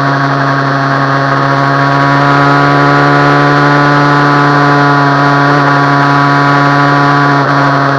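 Suzuki Bandit 650 motorcycle's inline-four engine running at a steady, nearly constant speed, with a brief small dip near the end.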